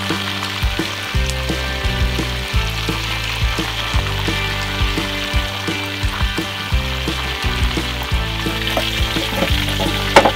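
Steady sizzle of a whole giant gourami deep-frying in hot oil, under background music with a steady beat. A sharp knock sounds near the end.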